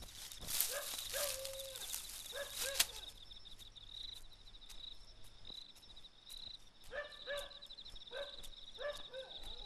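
Night ambience: insects trill steadily at a high pitch, with short pitched animal calls in small groups near the start and again near the end. Sharp clicks sound in the first few seconds.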